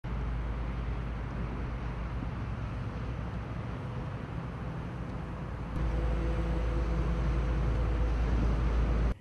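Outdoor background noise: a steady low rumble under an even hiss. It steps louder about six seconds in and cuts off suddenly near the end.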